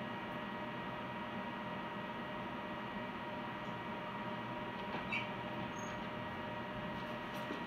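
Steady low hum and hiss of room tone, with faint steady electrical tones and one small click about five seconds in.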